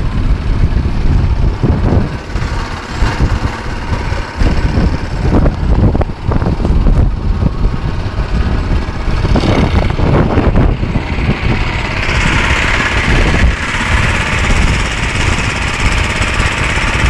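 Branco 6.5 hp longtail (rabeta) boat motor running steadily under way, with heavy wind buffeting on the phone's microphone. About twelve seconds in, a brighter hiss joins the sound.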